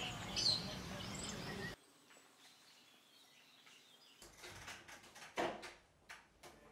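Birds chirping over outdoor background noise, cut off abruptly a little under two seconds in. Then a quiet room, with a few sharp clicks and knocks in the second half as a tall window is pushed open.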